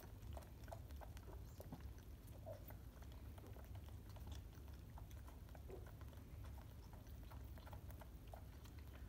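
Two koala joeys sucking milk from feeding bottles: faint, irregular soft sucking clicks over a low steady hum.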